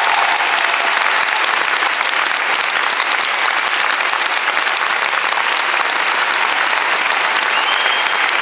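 Large audience applauding steadily, dense clapping that holds at an even level.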